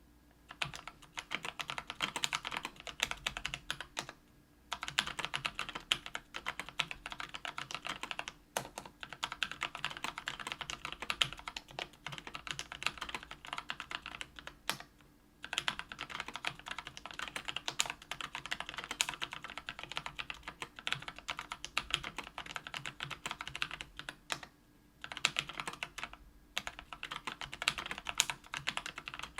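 Typing on a mechanical keyboard with lubed Kailh Brown 50 g tactile switches in a KBDfans Tofu 65% aluminium case with an aluminium plate: a fast, steady run of keystrokes, broken by a few short pauses.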